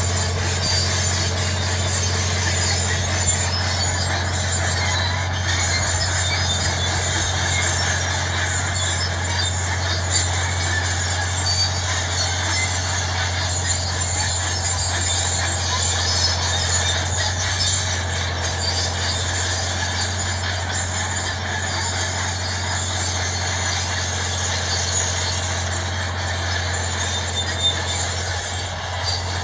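Crawler tractor's diesel engine running steadily under load as it drags a deep plow through the soil, with metallic squealing from its steel tracks over a constant low drone.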